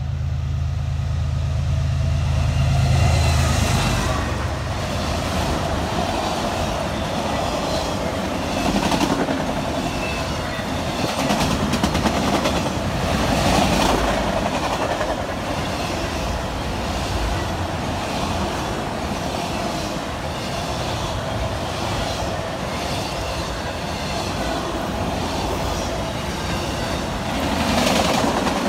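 BNSF freight train passing close by: the diesel locomotive's engine drone dominates the first few seconds as it comes by. A long string of autorack cars then rolls past steadily, wheels clacking over the rail joints.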